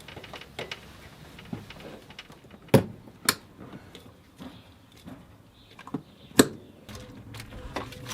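Scattered light clicks and knocks of hands handling a rubber coolant hose and its metal clamps in a car's engine bay. Three sharp knocks stand out, two close together about three seconds in and one a few seconds later.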